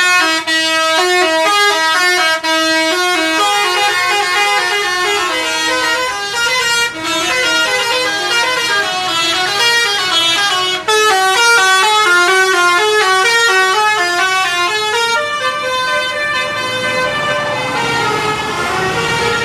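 Indonesian bus 'telolet' musical horns playing fast melodies of stepped notes, with brief gaps between phrases. Near the end the notes turn longer and held.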